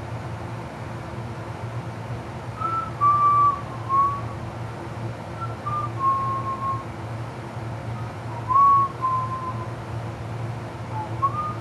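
A person whistling idly in short, slow phrases of a few notes each, mostly stepping downward, over a steady low hum.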